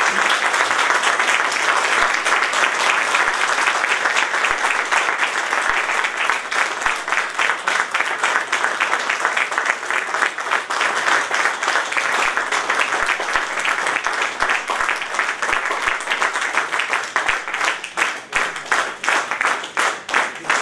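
An audience applauding in a hall: dense, sustained clapping that thins near the end into separate, more evenly spaced claps.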